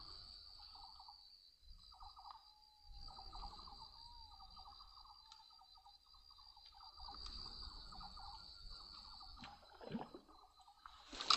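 Steady, high, thin insect buzz, with a softer rattling trill lower down that stops and starts.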